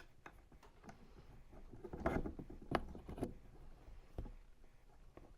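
Allen wrench working a small screw: scattered metal clicks and scrapes as the key is turned and repositioned, busiest from about two seconds in.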